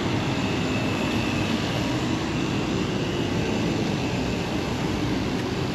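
Steady roar of city road traffic: an even wash of vehicle noise with a faint hum, holding level throughout.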